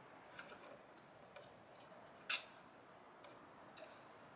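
Quiet, scattered ticks of a cat's claws on a wooden ramp as it steps down, with one sharper click about halfway through.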